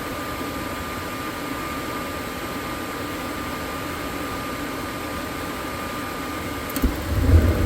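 RV propane furnace's blower fan running steadily with a thin whine. Near the end a click, then the burner lights with a low rumble.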